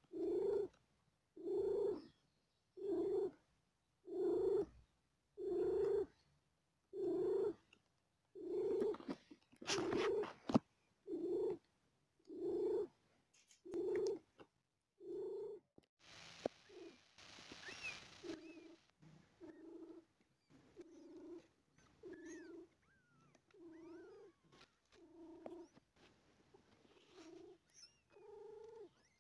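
Mother cat purring while her newborn kittens nurse just after the birth, in a steady rhythm of about one pulse a second with each breath. The purring grows fainter after about sixteen seconds.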